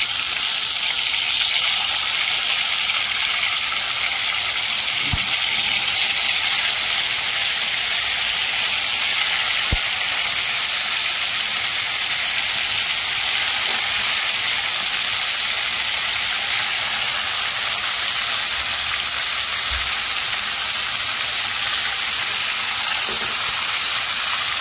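Yogurt-marinated chicken pieces sizzling steadily in hot oil in a nonstick kadai, a loud even frying hiss. A couple of faint knocks come about 5 and 10 seconds in.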